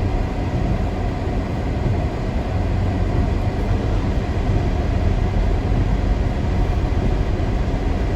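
Strong blizzard wind buffeting the microphone: a steady, loud, low rumble with a hiss of wind-driven snow above it.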